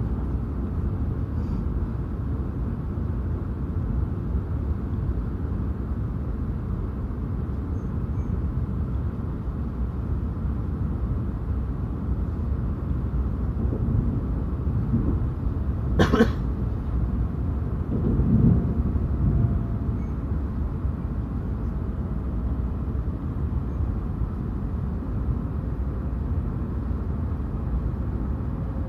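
Steady low rumble of a Shinkansen train, as heard inside the passenger cabin. About halfway through there is one sharp knock, followed a couple of seconds later by a few duller thumps.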